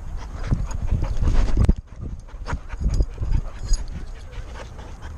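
A young Leavitt Bulldog panting and moving about, with irregular thumps and low rumble. The thumps are loudest just before two seconds in, then cut off suddenly.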